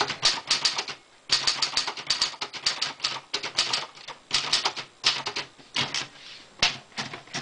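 Typing on a Royal Tab-O-Matic manual portable typewriter: quick runs of type bars striking the paper, with brief pauses about a second in and again near six seconds.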